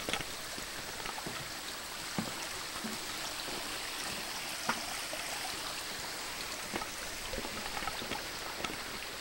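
Small rocky mountain creek running and trickling steadily over stones, with a few light knocks scattered through.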